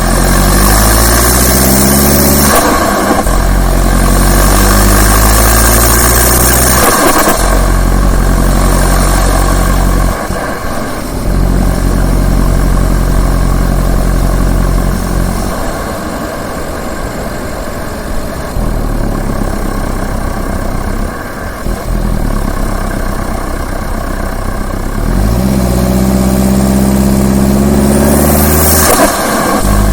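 Turbo diesel engine being revved: the pitch climbs at the start and again about 25 seconds in. Each time the revs drop there is a short rush of turbo flutter and induction noise, about 2.5, 7 and 29 seconds in. Between the revs the engine runs at a steady speed.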